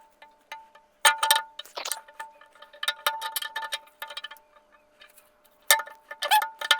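Metal clinking and tapping from tools and steel engine parts being handled while the camshaft of a Ford 300 inline-six is taken off. Sharp clinks come in clusters, loudest about a second in and again near the end, and a metallic ringing hangs on between them.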